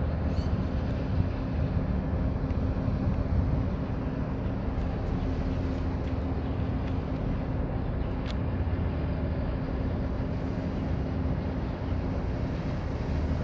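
Steady low rumble with a constant hum from the container ship Hyundai Integral's machinery as it moves slowly under way.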